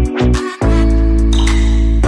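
Background music: a song with bass notes, guitar and a steady beat.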